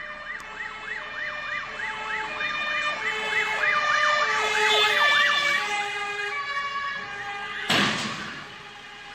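Emergency vehicle siren in a fast yelp, its pitch rising and falling several times a second, then settling into steadier tones, from a fire engine approaching. A sudden loud blast cuts in briefly near the end.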